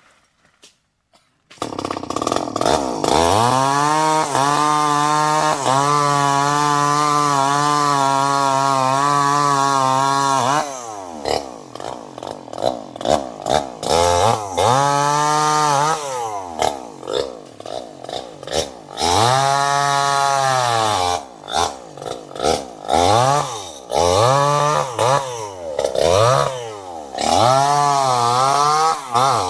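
Two-stroke chainsaw engine. After a second and a half of near silence it comes in, rises and is held at full throttle for about eight seconds. It then drops back and is revved again and again, ending in quick throttle blips about once a second.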